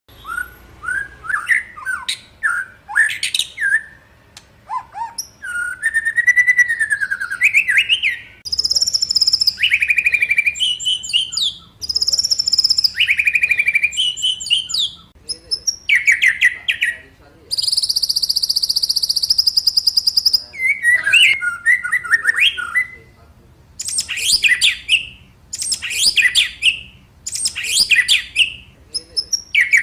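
White-rumped shama (murai batu) singing: a run of varied, loud whistled phrases with slurs that rise and fall and quick trills, broken by short pauses, with a long buzzing rattle about two-thirds of the way through.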